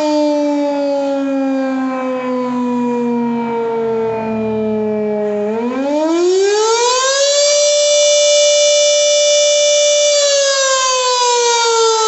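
H.O.R. Siro-Drone 10-port fire siren wailing the attack signal: its pitch sinks slowly for about five seconds, climbs quickly back up, holds a steady high note for a few seconds, then starts sinking again near the end.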